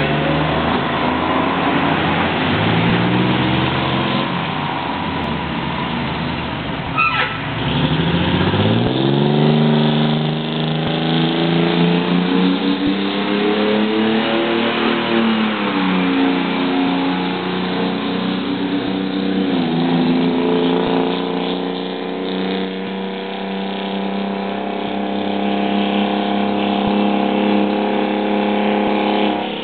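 Fire truck engines, among them a Hahn pumper, pulling away and passing. The engine note climbs in pitch, drops back as the transmission shifts up twice, then settles to a steady run.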